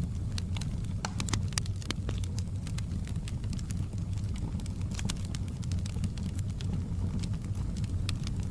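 Wood fire in a fireplace crackling: scattered sharp pops and snaps, several a second, over a steady low rumble.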